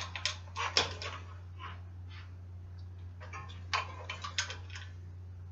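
Clusters of short, sharp metallic clicks and taps from hand tools working a bicycle's threadless stem loose on the fork steerer, over a steady low hum.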